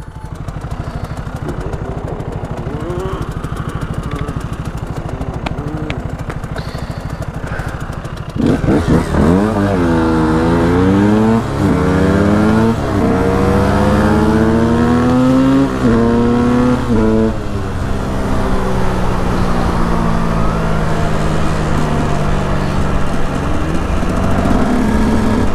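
KTM EXC 125 two-stroke single-cylinder engine running steadily at low revs, then from about eight seconds in revving hard up through the gears, its pitch climbing and dropping at each of several gear changes, before settling into a steady cruise.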